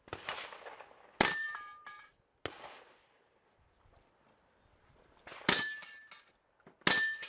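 A series of gunshots. Three of them are followed at once by the brief ringing clang of a struck steel target: the plates ring at two steady pitches for about half a second after each hit.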